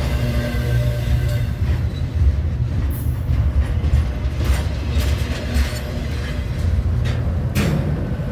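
CN intermodal freight train rolling past: a steady low rumble of the cars with sharp clanks scattered throughout.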